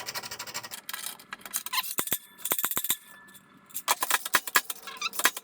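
Metal hand tools and parts clicking and rattling in several quick bursts of rapid clicks, with a few single sharp knocks and a brief squeak.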